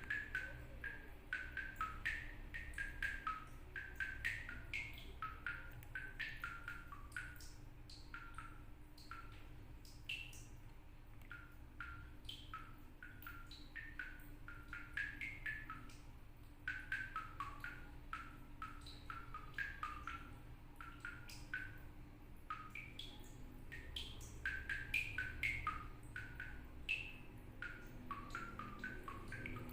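Water drops falling from a tap in a small toilet room, each drop a short rising plink, several a second in an uneven rhythm that sounds like a hand drum or wood block being played.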